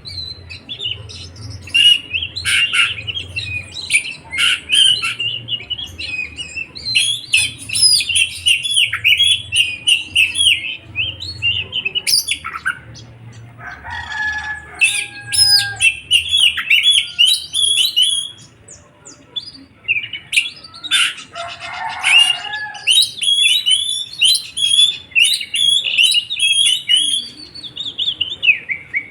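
Songbird song: rapid runs of high chirps and trills with brief pauses. Near the middle come a couple of lower held whistled notes and a short buzzy call.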